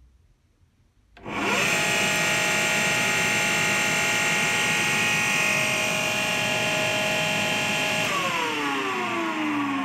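AEG Lavatherm 56800 tumble dryer motor starting suddenly about a second in and running with a steady whine. Near the end it cuts out and winds down, its pitch falling. It is running on the control board with the faulty motor relay swapped out.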